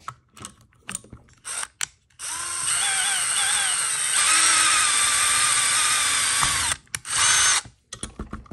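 Power drill boring a hole through a plastic skid plate: a few handling clicks, then the drill runs for about four and a half seconds, its pitch wavering as the bit bites, then a short second burst.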